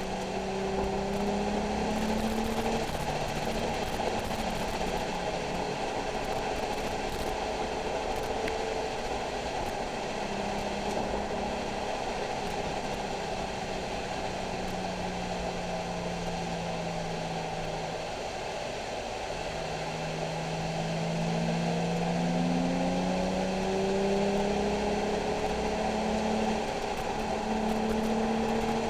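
Nissan 370Z's 3.7-litre V6 engine running under way, its pitch rising and falling slowly over several seconds as the car speeds up and eases off, over a steady road and tyre hiss.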